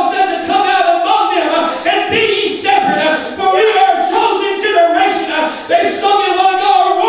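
A man preaching loudly into a handheld microphone, without pause, in an impassioned, half-sung cadence with some drawn-out notes.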